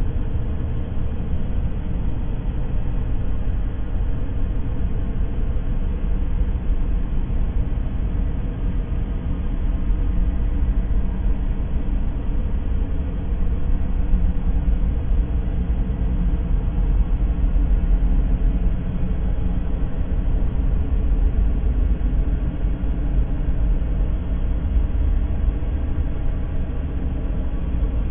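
Steady noise for sleep and focus: an even, deep rumble weighted heavily to the bass, with no separate events and nothing changing.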